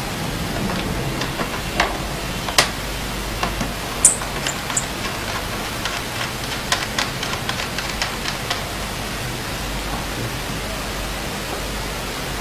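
Steady hiss with a few sharp clicks, then a run of light clicks and taps about halfway through.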